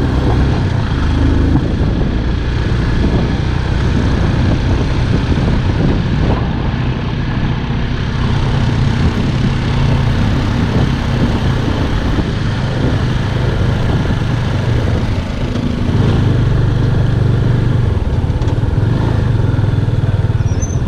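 Motorcycle engine running steadily under way, with wind and road rush over it; it gets louder about three-quarters of the way through.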